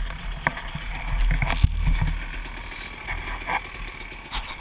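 Dirt bike engine running low as the bike rolls slowly over a rocky trail, with several sharp knocks and rattles from the bike.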